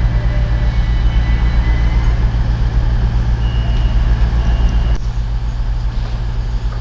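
Diesel multiple unit engines idling at a platform, a steady low drone; the drone changes abruptly about five seconds in, from a Class 221 Voyager to a Pacer railbus. A faint high tone sounds briefly in the middle.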